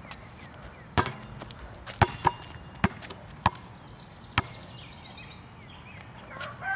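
A basketball bounces on asphalt, making about six sharp thuds at uneven intervals over the first four and a half seconds, and then stops.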